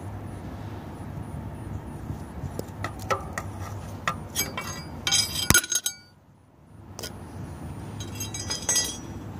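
Light metallic clinking and rattling in scattered bursts, like small metal tools or keys knocking together, over a steady low hum. The sound nearly cuts out for about a second midway.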